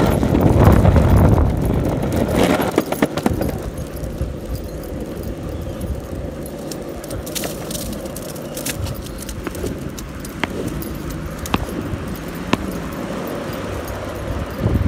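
Longboard wheels rolling over pavement while a dog pulls the board. The roll is loud and rough for the first three seconds or so, then settles into a quieter, steady roll with sharp clicks now and then.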